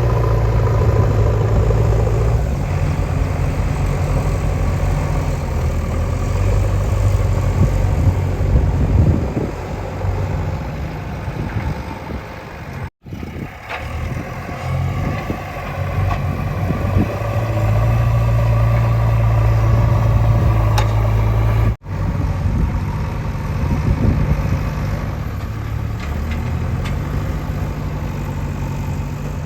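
Heavy diesel engines of earth-moving machinery running, a steady low engine note that rises and falls with load. The sound cuts off abruptly twice, about halfway and two-thirds of the way through.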